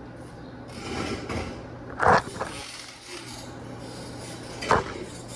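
Metal parts being handled on a workbench: a scrape about a second in, then two sharp clanks, one about two seconds in and one near the end, over a steady low hum.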